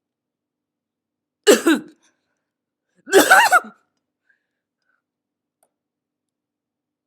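A man's fake coughing: one short cough about a second and a half in, then a longer cough of several quick pulses about a second and a half later.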